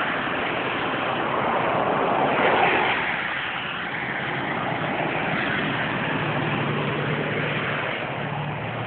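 Steady rushing noise of wind and passing road traffic, swelling briefly about two and a half seconds in as a vehicle goes by.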